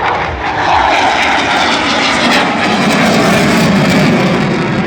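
Fixed-wing display aircraft flying past with a loud engine rush that slides lower in pitch about halfway through as it goes by.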